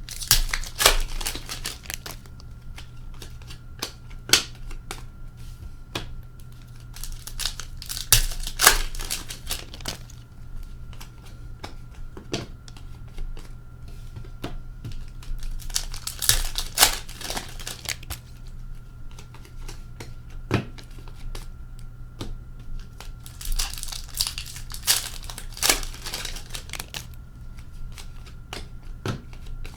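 Hockey card pack wrappers crinkling and being torn open in bursts every several seconds, with sharp clicks of cards being handled in between and a faint steady hum beneath.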